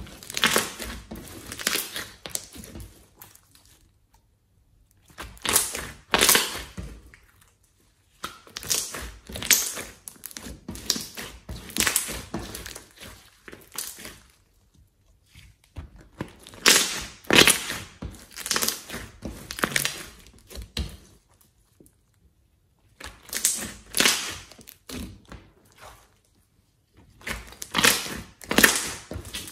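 A large batch of glossy, glitter-flecked slime being kneaded, pressed and stretched by hand, making sticky crackling and clicking pops. The pops come in bursts of a few seconds with short pauses between.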